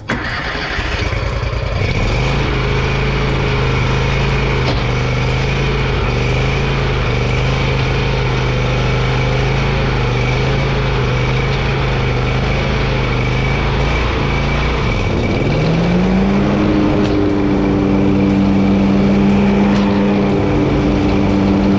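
Exmark Turf Tracer walk-behind mower's Kohler EFI engine running steadily. About fifteen seconds in it speeds up smoothly to a higher, steady pitch.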